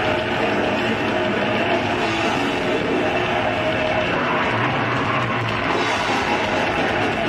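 Live death/black metal band playing loud, dense and steady: distorted electric guitar, bass guitar and drum kit.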